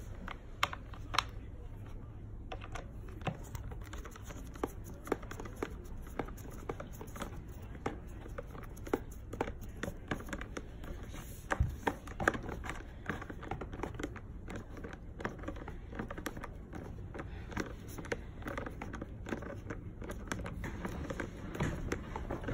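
Screws being driven by hand with a screwdriver into a plastic rocker frame: irregular small clicks and scrapes of the driver and screw against the plastic.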